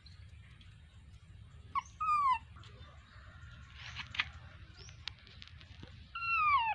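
Baby macaque calling: two high, thin cries that fall in pitch, each about half a second long, one about two seconds in and one near the end. A short noisy sound comes about four seconds in.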